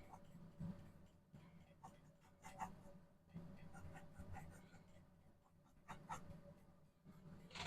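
Faint paintbrush strokes on canvas: soft, short scratchy strokes every second or so, over a faint steady hum.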